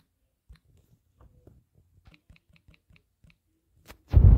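Faint quick taps and clicks of typing on a smartphone's on-screen keyboard, a run of them about two to three seconds in. Near the end come two loud, low, dull thumps, like the phone or its microphone being bumped.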